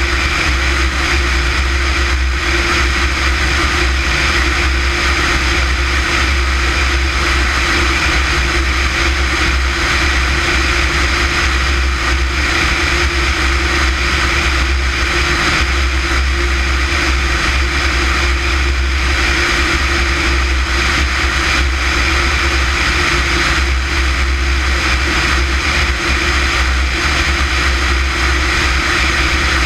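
Light aircraft in level flight: a steady, loud drone of engine and rushing air that does not change.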